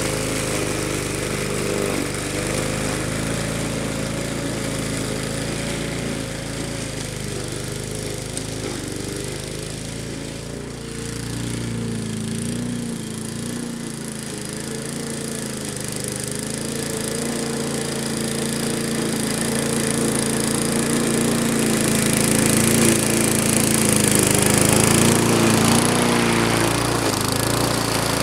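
Walk-behind gas rotary lawn mower running while cutting tall ragweed, its engine pitch wavering slightly. It grows fainter in the middle as it moves off and louder again near the end as it comes back close.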